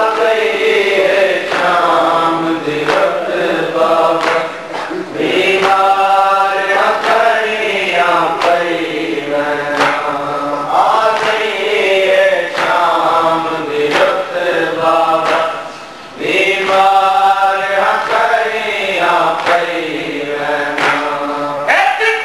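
Men chanting a noha, a Shia mourning lament, in long drawn-out melodic phrases that the crowd takes up, over regular chest-beating (matam).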